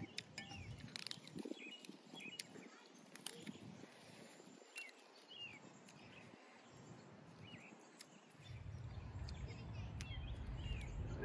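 Birds chirping in short, repeated calls, with scattered small clicks from food being handled at the table. A low rumble comes in near the end.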